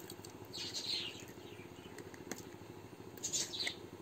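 Faint bird chirps: a short high call about half a second in and a quick run of chirps near the end, over a low steady hum.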